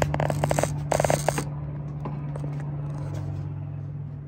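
A spoon scraping and knocking diced onion and cucumber out of a plastic container in quick strokes, in two short runs within the first second and a half, then a few light ticks. A steady low hum runs underneath.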